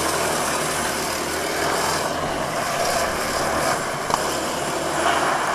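Go-kart engine running steadily as the kart drives laps on tarmac, with an even hiss over it.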